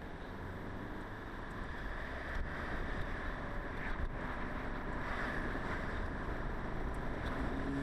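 Car driving on the road, heard from inside the cabin: a steady drone of road and engine noise.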